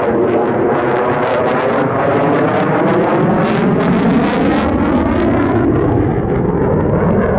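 USAF F-35A's Pratt & Whitney F135 turbofan running in afterburner: a loud, steady jet roar whose tone sweeps slowly, with a spell of sharp crackling a few seconds in.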